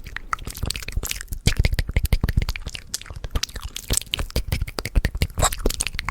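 Fast ASMR mouth sounds close to the microphone: a rapid, irregular stream of wet clicks, pops and smacks from the lips and tongue.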